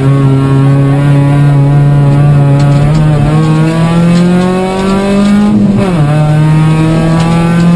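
Toyota Corolla 1.6 rally car's engine heard from inside the cabin, pulling under load with the revs climbing steadily. A little before six seconds in the revs fall sharply, then the engine pulls on at a steady pitch.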